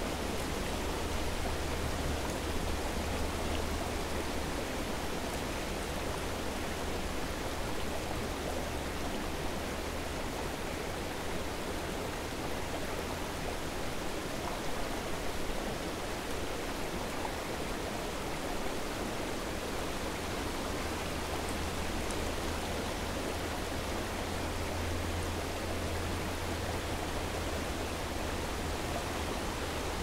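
Steady rushing of a waterfall and stream: an even hiss of running water with a low rumble beneath it that grows stronger near the start and again in the second half.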